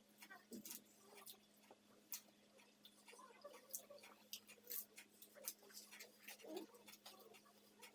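Faint, irregular clicks and smacks of people chewing and eating burgers, over a steady low electrical hum.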